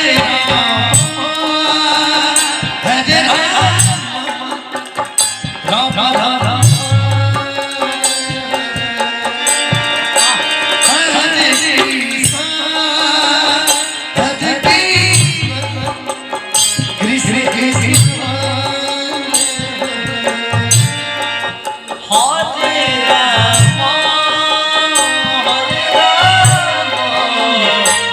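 Kirtan devotional music: tabla drumming under sustained melodic lines, with gliding vocal phrases at times.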